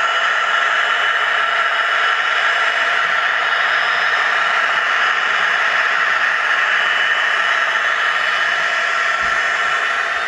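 N gauge Dapol Class 66 model diesel locomotive with DCC sound, running slowly through a tight curve with wagons in tow. A steady, even running noise with a few faint steady whines in it, unchanging throughout.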